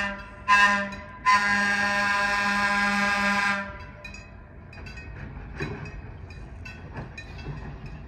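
Pacific Electric Blimp interurban car's horn: a blast that cuts off, a short toot, then a long blast of a bit over two seconds. After that, a low rumble with irregular sharp clicks as the car rolls in along the track.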